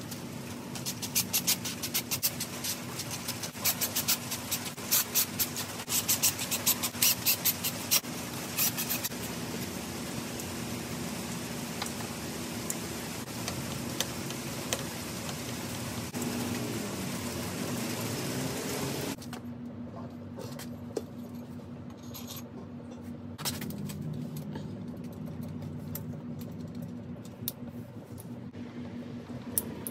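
Cordless drill-driver running bolts into an LS engine's timing chain cover, with bursts of rapid sharp clicks for the first several seconds. About nineteen seconds in the sound drops suddenly to quieter clinks and scrapes of hand tools over a steady low hum.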